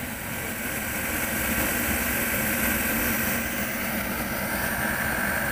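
Diesel-fired forced-air space heater running: its fan and burner make a steady rushing noise with a low hum and a faint high whine.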